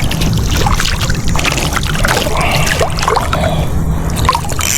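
Steady low wind rumble on the microphone, with scattered faint clicks and rustles over it.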